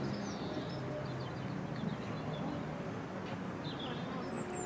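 Small birds chirping and singing, many short quick calls, over a steady low rumble.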